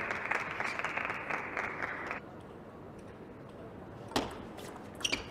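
Crowd applauding in an arena hall, stopping suddenly a little over two seconds in. Then come sharp table tennis ball clicks on bat and table: one about four seconds in and two close together near the end.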